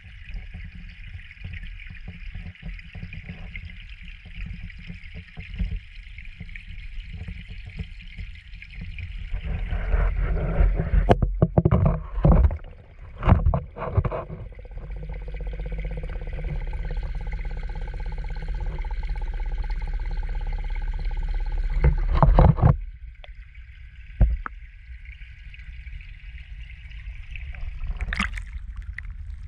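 Muffled sound of a camera held underwater in a pond: a steady low rumble and water hiss, with several loud knocks partway through and again later as it is handled. Near the end comes a splash as the camera breaks the surface.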